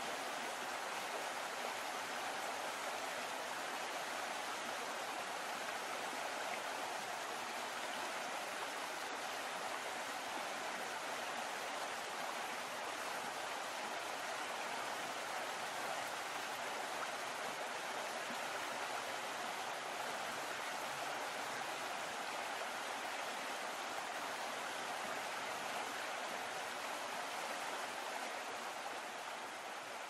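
Steady rushing of water stirred by a moving boat, an even hiss with no breaks, fading a little near the end.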